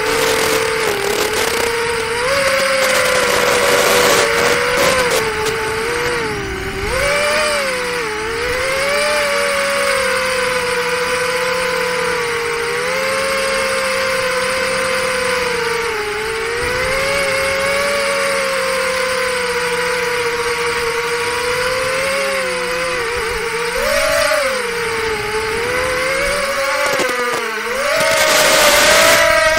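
Four-inch FPV quadcopter's 1603 2800KV brushless motors on 4S whining in flight, heard from the camera on the drone. The pitch rises and dips with the throttle, and it gets louder and rougher near the end.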